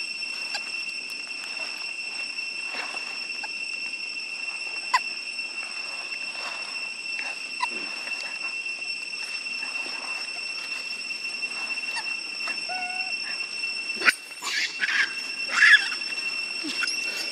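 A steady, high-pitched insect drone in tropical grassland, with scattered small rustles and clicks. Near the end comes a brief flurry of louder, sharp sounds.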